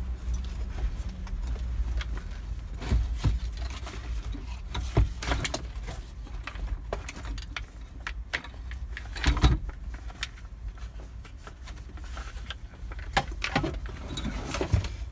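Handling noise from a truck's A/C evaporator housing and coil being lifted and shifted by hand: scattered knocks, clicks and clatters of plastic and metal, one louder knock about nine seconds in, over a steady low hum.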